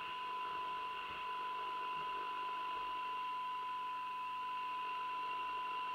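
Steady 1 kHz test tone with hiss from the Uniden Uniace 200 CB receiver's audio output. This is the signal generator's modulation, demodulated by the set while its receive coils are aligned.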